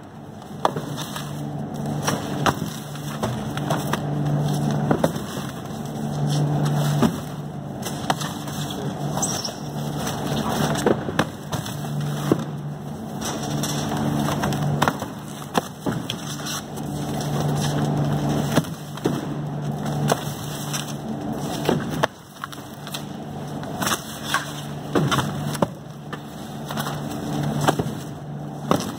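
Heavy 20 kg cardboard boxes of jack mackerel being slid and set down onto metal rack trays: irregular knocks, thuds and scrapes, over a steady low hum that swells and fades every few seconds.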